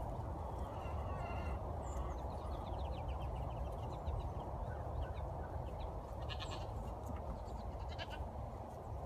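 A goat bleating faintly a couple of times in the first half, over a steady low rumble.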